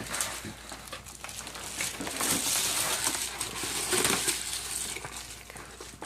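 Parcel packaging being handled and opened: crinkling and rustling, busiest in the middle, with small clicks and taps.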